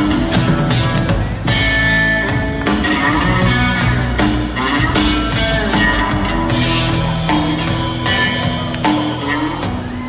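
Live band playing an instrumental passage: electric guitar over drum kit and upright bass, heard from the audience.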